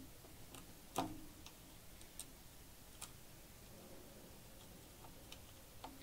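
Faint, scattered small clicks and taps of a screwdriver and tiny screws against the metal drive bracket and chassis of a mini PC during hard-drive mounting, the loudest about a second in.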